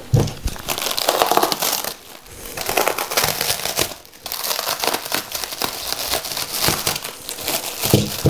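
Clear plastic wrap crinkling and crackling as it is handled and pulled off a potted bonsai, with brief lulls about two and four seconds in. A low thump comes near the end.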